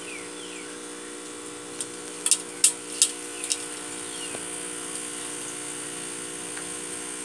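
Electric cotton candy machine running, its spinning head motor giving a steady hum. A quick run of sharp clicks comes between about two and three and a half seconds in.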